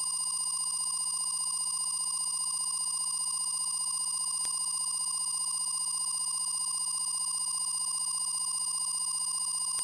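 Loud, unbroken electronic tone: a very high steady whine over several weaker steady pitches and a fast-fluttering lower buzz, with a faint click about four and a half seconds in.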